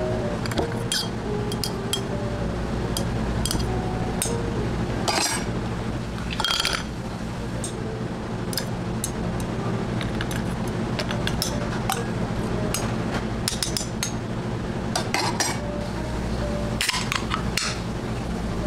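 Glass and metal clinks as preserved lemon slices are spooned from a glass jar into a tall glass of ice: scattered light clinks and taps of the utensil against the jar and glass, and of slices and ice shifting, over a steady low hum.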